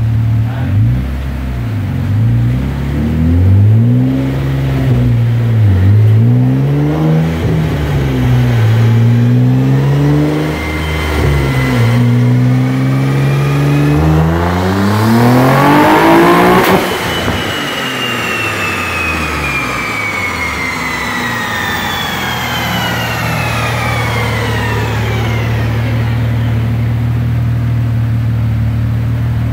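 Twin-turbocharged 2017 Nissan 370Z Nismo's 3.7-litre V6 on a chassis dyno, revving up and down for about fourteen seconds, then pulling hard with pitch rising steeply until it cuts off about seventeen seconds in. A long falling whine follows as the drivetrain and dyno rollers coast down, and the engine settles to a steady idle near the end.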